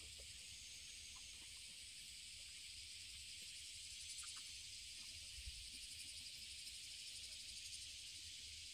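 Faint, steady insect chorus, with a fast pulsing trill joining about four seconds in, over a low rumble.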